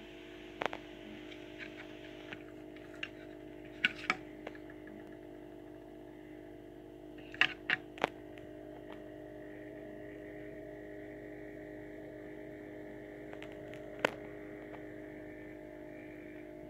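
Sharp clicks and taps of the JAKEMY JM-8101 screwdriver kit's plastic case and screwdriver being handled, a few at a time with gaps between, three in quick succession about halfway. Beneath them runs a steady hum.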